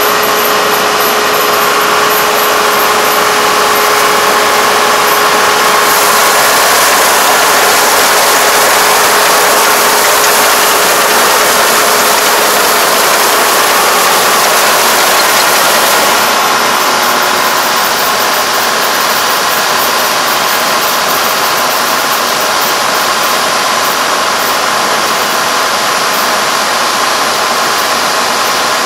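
Four-row rice combine harvester running under load, its engine and cutting and threshing machinery making a loud, steady drone as it harvests lodged rice. The sound eases slightly a little past halfway.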